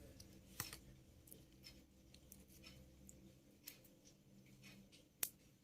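Faint, scattered clicks and snips of scissors cutting and stripping the outer jacket of a UTP LAN cable, with sharper clicks about half a second in and again near the end.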